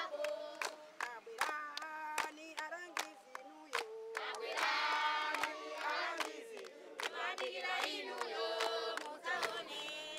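A group of voices singing together, with frequent sharp percussive strikes through the song.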